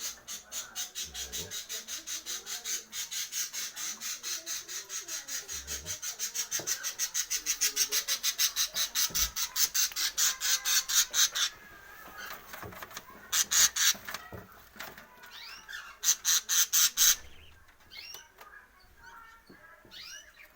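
Caged pet birds calling: one bird gives a fast, even series of sharp, high calls, about five a second, growing louder for about eleven seconds. Two shorter bursts follow, then scattered softer chirps.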